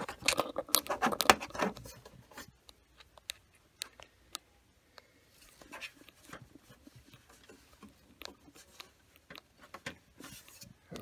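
Hands handling a laser printer's plastic housing and panels: rubbing and scraping for about the first two seconds, then scattered small clicks and taps.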